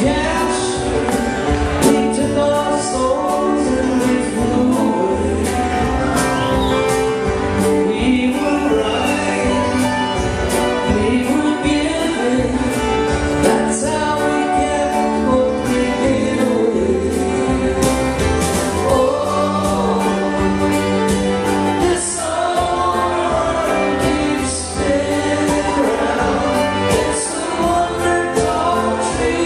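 Live band playing an acoustic, country-folk song with a steady beat, with male singing and harmony vocals over acoustic guitar, electric guitar, fiddle, banjo, upright bass and drums. Heard from among the audience in a large hall.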